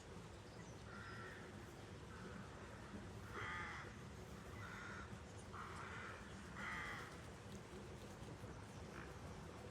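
A bird giving a series of about six short, harsh caw-like calls, roughly one a second, over a faint steady outdoor background.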